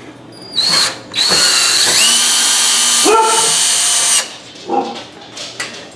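Cordless drill/driver backing a screw out of the oven's bottom trim: a short burst of the motor, then about three seconds of running, its whine climbing as it speeds up.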